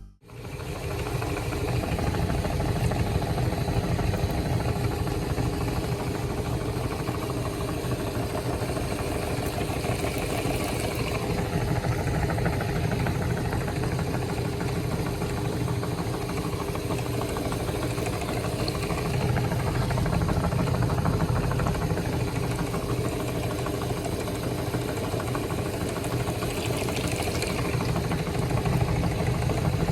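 Electric meat grinder running steadily, its motor hum holding one even pitch throughout.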